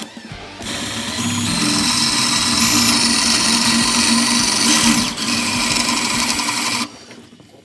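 Power drill running at speed, its bit boring into the seized steel end fitting of a rusted rear brake hose so that the hose can be sheared off. It starts about half a second in, runs steadily with a high whine and stops about a second before the end.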